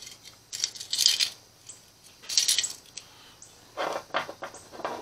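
Small metal carburetor-cleaning wires clinking and scraping as one is picked out of the set, in a few short bursts, then a few duller knocks near the end as the carburetor is handled on the bench.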